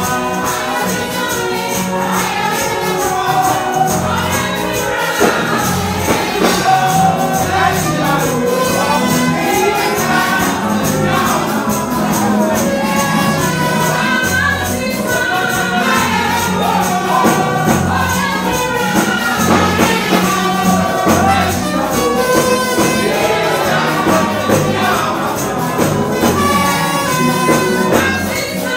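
Gospel praise music through a PA: a girl and a man singing into microphones over a band with a steady tambourine beat and a bass line.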